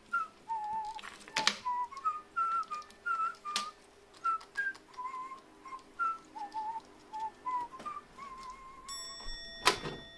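Background music: a whistled melody of short, slightly wavering notes over a faint steady low accompaniment, with a few sharp taps. Near the end a sound effect of several high held tones and a loud click.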